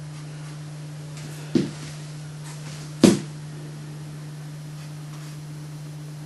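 Two short knocks about a second and a half apart, the second sharper, as painting gear is handled on the work table, over a steady low hum.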